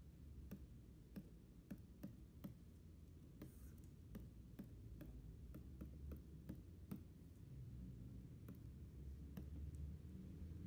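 Faint, irregular clicks of a plastic stylus nib tapping and lifting on the glass of a pen display during inking, over a steady low hum.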